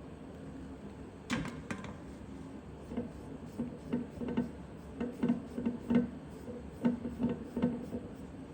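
A rag wet with acetone rubbed over a metal outboard propeller shaft to clean it: a run of short, uneven wiping strokes, a few a second, starting about a second in and stopping near the end.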